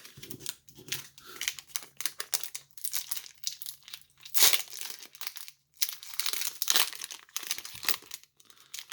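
Foil Pokémon booster pack wrapper being handled and torn open: a run of irregular crinkles and rustles with short pauses.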